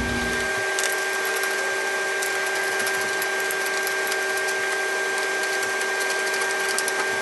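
A steady machine hum and hiss at an even level, with faint irregular ticks through it.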